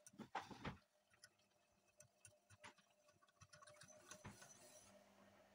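Faint, irregular light clicks and taps of a metal whisk against a stainless steel saucepan as caramel is stirred, with a few louder taps in the first second.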